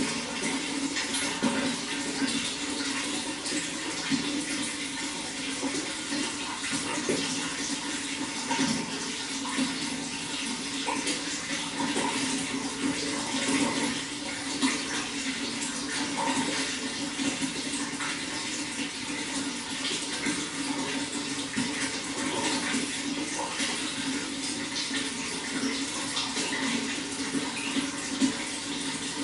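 Running water: a steady rush with many small splashes and gurgles.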